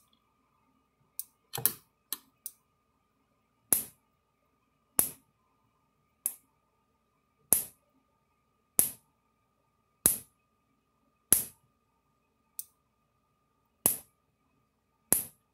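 Premier 1 KUBE Argus 4000 electric fence charger's high-voltage pulses jumping from its output terminal to a screwdriver tip: a sharp spark snap about every 1.25 seconds, after a few irregular snaps in the first couple of seconds, over a faint steady high tone. The charger is working, putting out about 6,500 volts.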